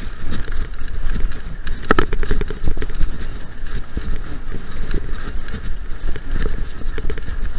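Mountain bike rattling and knocking over a rough dirt trail on a fast descent, with a constant low rumble of wind on the microphone and a sharper knock about two seconds in.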